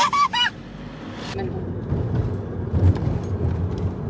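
Low, steady rumble of a car's engine and tyres heard from inside the cabin while driving, swelling briefly about two to three seconds in.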